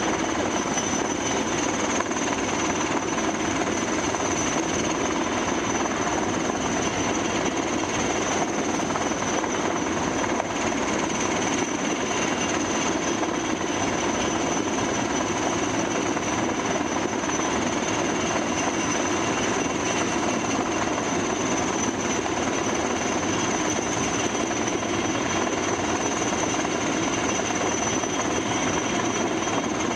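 Helicopter rotor chopping in a constant fast rhythm as it hovers with a slung load, heard through the windshield of a car, with a steady high whine over it.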